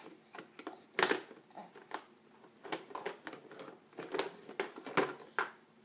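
Plastic toy blocks knocking and rattling against a hard plastic toy bucket as a baby's hands rummage inside it: irregular light clicks and knocks, the sharpest about a second in.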